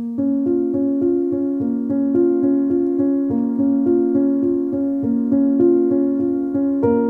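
Background piano music: a steady, even run of notes, about three to four a second.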